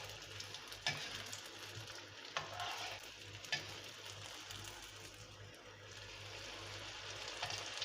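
Vermicelli-coated potato balls deep-frying in hot oil in a kadai: a steady sizzle, with a few sharp clicks.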